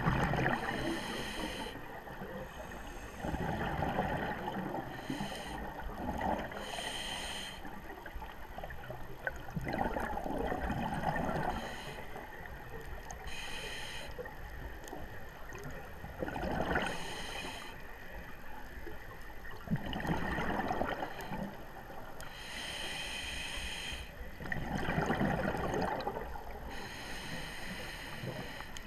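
Scuba diver breathing through a regulator underwater: a short hissing inhale alternating with a longer, louder rush of exhaled bubbles, about five breaths.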